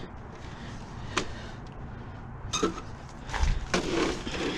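Handling noise from a white plastic tower appliance being turned over in gloved hands. There is a sharp plastic click about a second in, then a longer spell of knocking and rubbing near the end.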